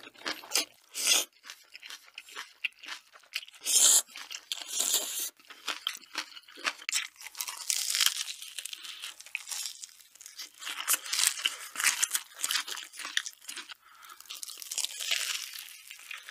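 Close-miked eating sounds: a slurp of noodles at the start, then loud crunching bites and chewing of a fried corn dog coated in crisp potato cubes, in irregular crackling bursts.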